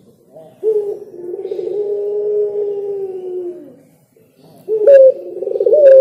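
Caged dove cooing: one long, low coo of about three seconds that sinks slightly in pitch at its end, then a short pause and another coo starting near the end.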